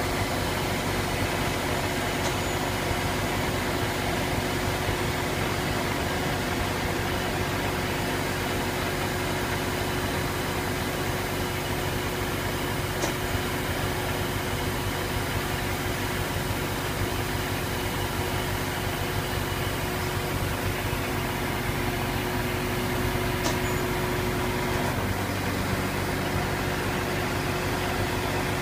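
A crane's engine running steadily at idle as it holds a suspended load, giving a continuous hum. A held tone in the hum drops away near the end.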